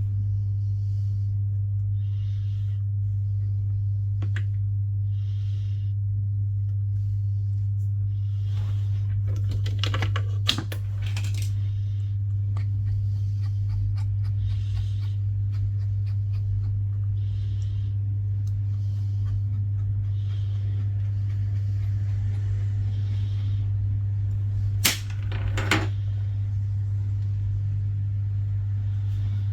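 A steady low hum, with a few sharp clicks and taps: one about four seconds in, a cluster about ten seconds in, and two more near twenty-five seconds.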